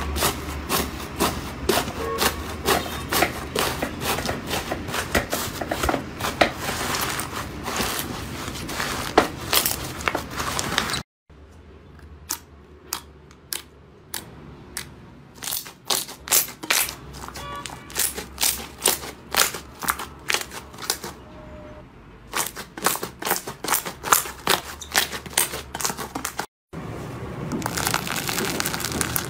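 Slime being squeezed and pressed by hand, giving a fast run of crackling, popping clicks. The sound breaks off twice for a moment; the middle stretch is quieter.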